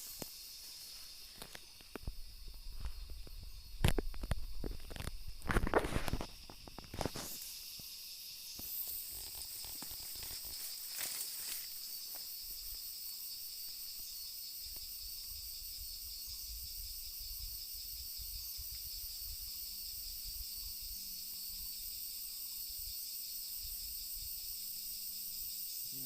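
Steady high-pitched insect chorus of the tropical forest. For the first dozen seconds there are also rustling and knocking sounds, loudest around four and six seconds in.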